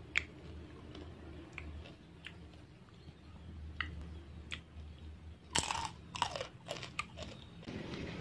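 Crisp fried grasshoppers crackling lightly a few times as fingers pick through them on a plate. About two-thirds of the way through comes a burst of loud crunching from biting and chewing the crunchy fried insects.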